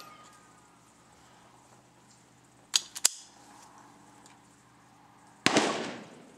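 Lorcin L-22 .22 LR semi-auto pistol firing one shot near the end, with a short decaying tail. About midway come two short, sharp clicks a quarter of a second apart.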